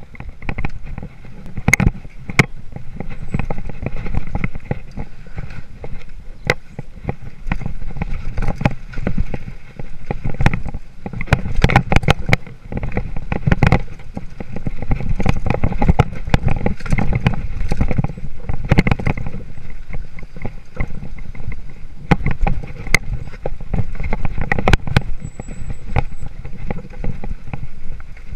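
Hardtail mountain bike ridden over a rocky dirt trail: tyres rumbling over the ground, with many sharp knocks and rattles from the bike as it hits rocks, and wind buffeting the chest-mounted camera's microphone.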